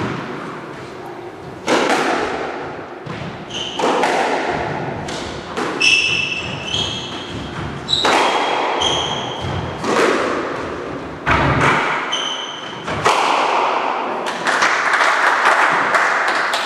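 A squash rally: sharp hits of the ball off rackets and walls about every two seconds, echoing in the enclosed court, with sports shoes squeaking on the wooden floor.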